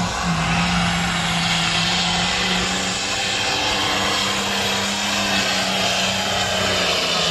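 Pro stock pulling tractor's turbocharged diesel engine running loud and steady at high revs, with a high hiss riding over the engine note from about a second in.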